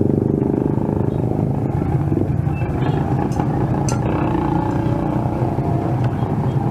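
Motorcycle engine idling with a steady low drone, and a couple of light clicks about three and a half seconds in.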